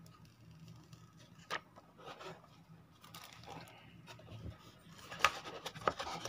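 Hands handling a smartphone and its cardboard box and paper insert: light scrapes and rustles with scattered sharp clicks, which grow busier and louder in the last second or so.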